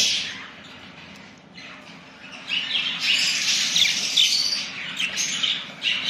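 Budgerigars chirping and chattering, a mass of rapid high chirps that starts about two and a half seconds in after a quieter stretch.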